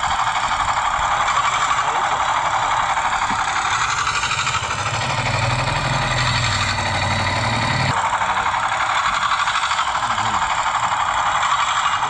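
Small engine of a miniature working cement concrete mixer model running steadily at high speed, with a dense, fast mechanical chatter. A deeper hum joins about four seconds in and cuts off suddenly about eight seconds in.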